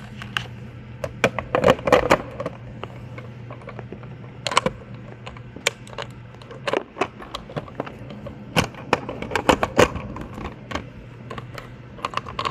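Irregular clicks, clacks and knocks from keys and a thermostat's lock box being handled and locked, over a steady low hum.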